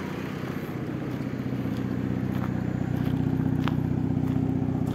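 Daihatsu Charade Classy engine idling steadily, growing gradually louder toward the rear of the car where the exhaust is.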